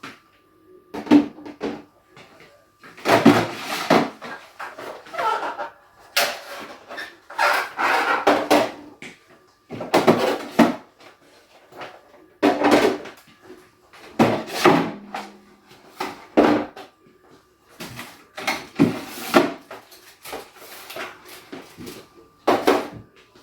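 Food and plastic containers being taken out of a refrigerator: irregular clattering, knocks and rustling as items are handled and set down, with brief pauses between.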